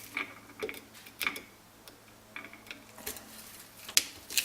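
Scattered light clicks and taps of metal hand tools against a Lucas C35SD motorcycle dynamo as it is taken apart, about eight short sharp clicks spread unevenly.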